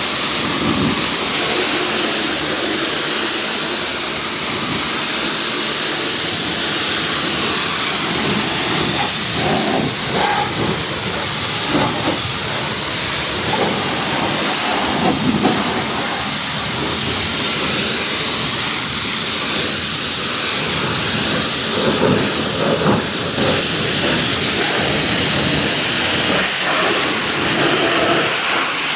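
Pressure washer spraying a jet of water against a truck: a steady, loud hiss with uneven surges, growing louder and brighter near the end.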